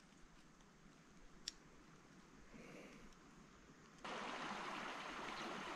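Faint near-quiet with a single sharp click, then about four seconds in the steady rush of a shallow rocky river flowing over stones comes in abruptly.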